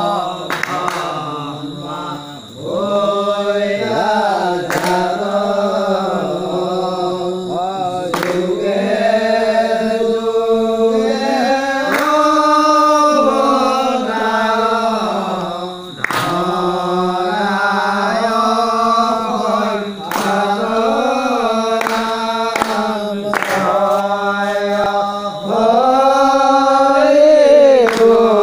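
Assamese naam-prasanga devotional singing: chanted sung lines, long and drawn out, with breaths between phrases.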